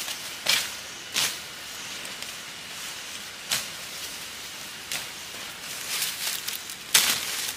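Fern fronds and leafy undergrowth rustling and swishing in several short, sharp bursts as a person pushes through and grabs at the plants, the loudest near the end, over a steady background hiss.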